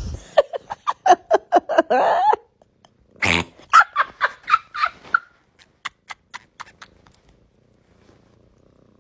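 A rapid run of short, pitched 'ha-ha-ha' vocal bursts, about four or five a second, in two spells; the second spell is higher-pitched. A few scattered clicks follow, then it goes quiet.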